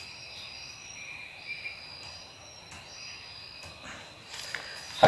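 Insects chirping steadily in the background, with a few light taps on a laptop keyboard. Paper rustles in the last second.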